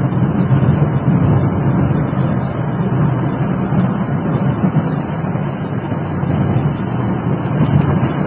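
Steady low rumble of car cabin noise, from road and engine, heard from inside the car.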